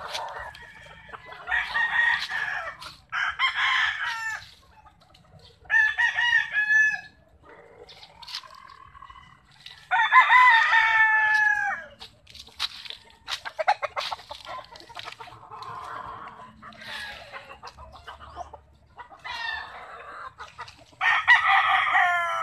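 Gamefowl roosters crowing repeatedly, about five crows of one to two seconds each with the longest and loudest about ten seconds in, with fainter clucking and calls between them.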